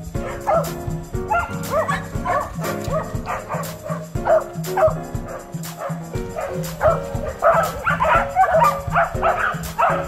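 Background music with a steady bass line, with Welsh Corgis yipping and whining over it in short, pitch-bending calls, several a second, thickest in the second half.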